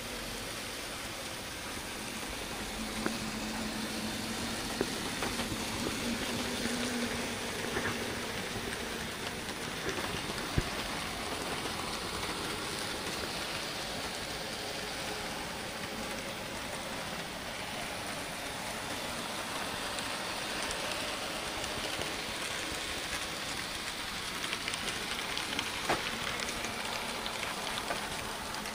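Z scale model train running along the track: a steady rolling hiss with a few light clicks, and a faint motor hum from about three to seven seconds in.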